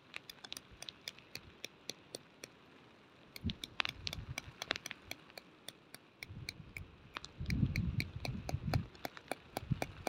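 Hammer tapping a tent peg into the ground: quick, sharp taps, about four or five a second. Gusts of wind buffet the microphone between about seven and a half and nine seconds in.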